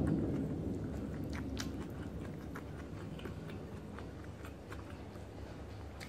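Close-up chewing and mouth smacking with scattered short clicks, as a person eats rice and squid adobo by hand. A louder low rumble dies away in the first second.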